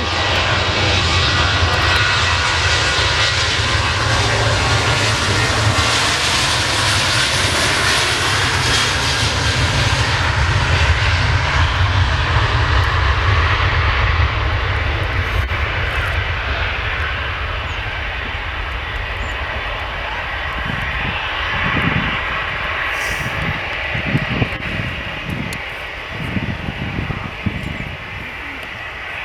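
Boeing 737 jet engines at takeoff thrust: a loud, steady roar with a faint whine, cutting in suddenly and easing a little past the halfway mark. Irregular low rumbles come and go near the end.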